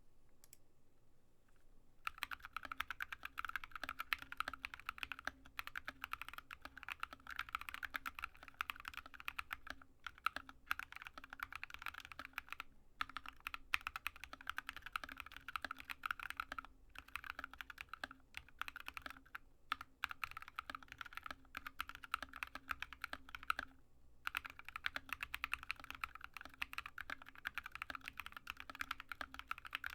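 Typing on a Drop ALT low-profile mechanical keyboard with stock, unlubed Alpaca linear switches and MT3 keycaps. It is a rapid, continuous clatter of keystrokes that starts about two seconds in, with a few brief pauses.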